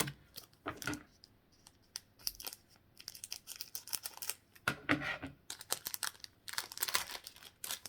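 Foil Pokémon booster pack wrapper crinkling and being torn open, in irregular crackling bursts, the loudest about five and seven seconds in.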